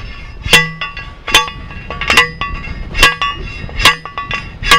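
Manual post driver striking a steel T-post, driving it into the ground: six clanging metal-on-metal strikes, a little under one a second, each ringing briefly.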